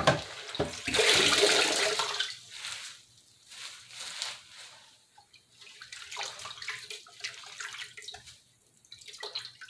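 Water splashing in a pot of rinse water in a sink as washed kale leaves are lifted out, with a loud pouring splash about a second in, then softer splashes and drips.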